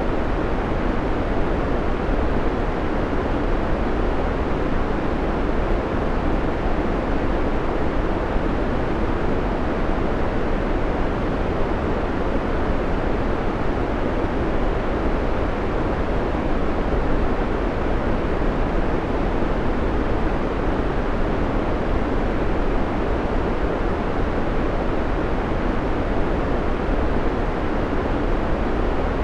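Steady synthetic noise, heavier in the lows and fading toward the highs, with no change or events.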